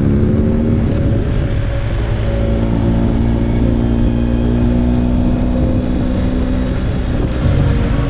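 BMW GS motorcycle's boxer-twin engine running steadily at road speed, with wind rushing over the microphone.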